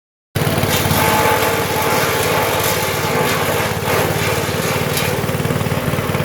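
Small engine driving a patchouli leaf-and-twig chopper, running steadily at speed with a fast, even pulse; it cuts in abruptly about a third of a second in.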